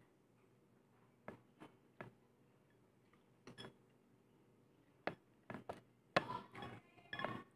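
A person chewing grilled street-food skewers with the mouth closed: scattered soft mouth clicks and smacks that grow more frequent near the end.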